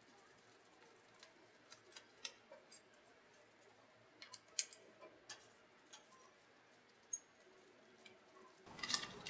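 Faint, irregular small metallic clicks and ticks of a hand-held Allen wrench working the bolts on a scroll pump's outboard housing, coming in small clusters. The handling noise and clicking grow louder near the end.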